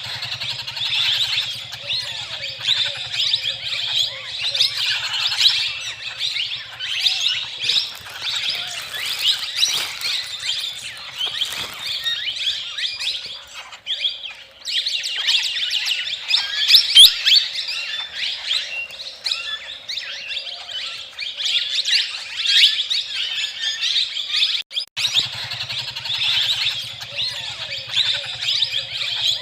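A flock of small birds chirping and twittering all at once, a dense, unbroken chatter of many overlapping calls. A low steady hum runs under it for the first third and again near the end.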